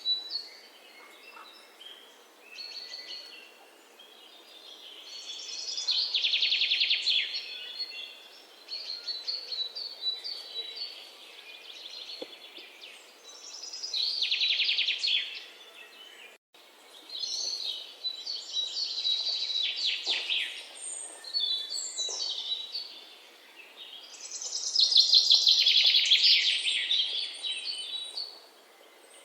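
Birds chirping and singing in repeated bursts of quick trills, with quieter calls in between.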